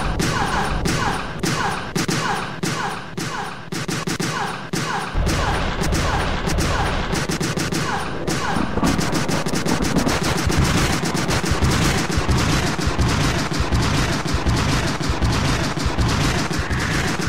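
Harsh electronic noise music: rapid pulsing clicks, about three a second, each with a short falling chirp. About five seconds in, a low rumble joins, and later the pulses quicken into a dense rattling stream.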